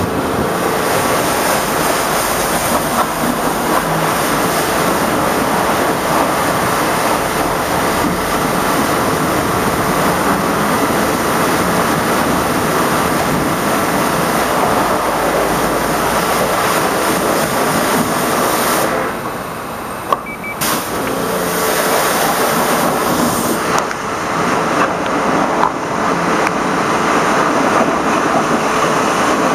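High-pressure water spray hitting a truck's chassis and engine, a steady hiss that cuts out for about two seconds two-thirds of the way through, with a sharp click in the gap, then starts again.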